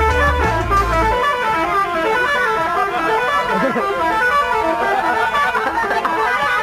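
Telolet bus horn, a multi-tone musical horn on an Indonesian coach, playing a quick melody of short stepping notes.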